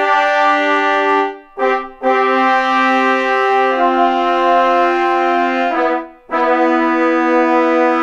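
Sampled pair of trombones from EastWest Hollywood Brass playing sustained accented notes from a keyboard, two notes at a time: a held chord, a brief one, a long one whose lower note steps down midway, then another held chord.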